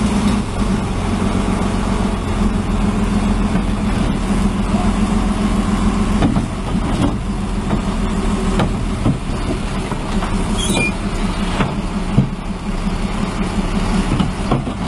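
Heavy diesel engine of a large machine running steadily, with scattered knocks and clanks.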